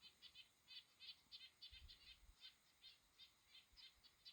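A flock of small birds chirping faintly and busily in a tree: a rapid run of short, high chirps, several a second.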